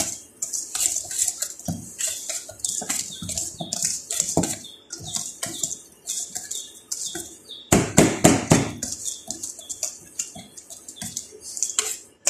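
Wire balloon whisk beating cake batter in a stainless steel bowl, its wires scraping and clicking against the metal in quick, rhythmic strokes. About eight seconds in there is a short run of louder knocks against the bowl.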